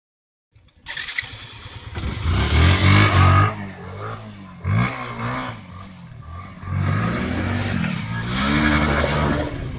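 Motorcycle engine revving hard in three rising pushes: a long one about two seconds in, a short sharp blip near five seconds, and a held rev from about seven seconds on. A hiss rides over it as the rear tyre spins in the dirt and dry leaves.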